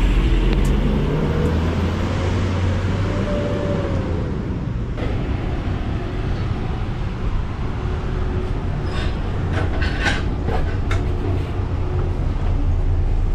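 Steady rumble of a passenger shuttle on the move, heard from on board, with a whine that rises in pitch over the first few seconds as it speeds up. A few light clicks or rattles come later.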